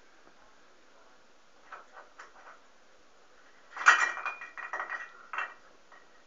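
Small tin Christmas decorations hanging on a stair banister clinking and rattling as a cat bats at them. A few light clicks come first, then a burst of metallic clinking with a short ringing tone about four seconds in, lasting about a second and a half.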